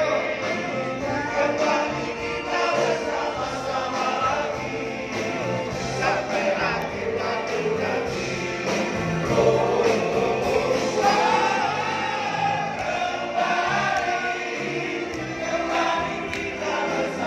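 A large group of singers singing a pop song together live, with band accompaniment over a steady bass beat, heard from the audience seats of a concert hall.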